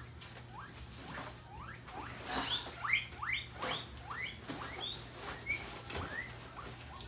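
Small animal squeaking: a run of short, high squeaks that each glide upward, about two or three a second, stopping about six seconds in.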